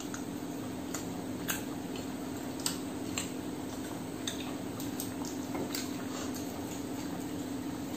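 Hand eating from a stainless-steel plate: fingers working the food, with scattered light clicks and taps against the metal. A steady low hum runs underneath.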